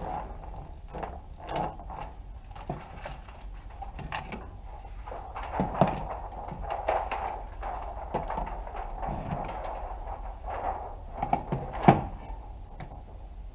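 HK 416 rifle being loaded by hand: scattered metal clicks and clacks from the magazine and action being worked, the sharpest clack near the end.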